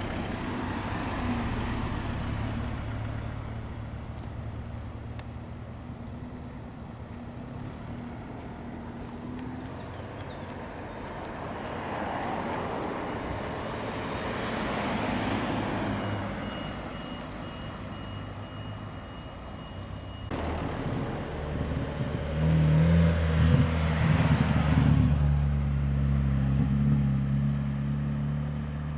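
Cars driving slowly past one after another: engine hum and tyre noise swell as each goes by, a modern MINI convertible among them. In the last several seconds a silver modern MINI hatchback passes close and pulls away, with a loud, deep engine note.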